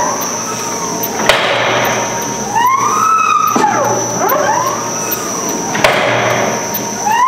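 Paradichlorobenzene block press running through its pressing cycle: a whine that rises and falls in pitch over and over, with a sharp clack about a second in and again near the end.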